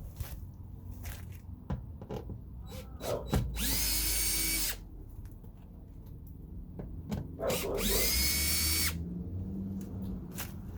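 Power drill run in two short bursts, each spinning up quickly and then running steady for about a second, driving out screws on a car door. Small clicks and knocks of handling between the bursts.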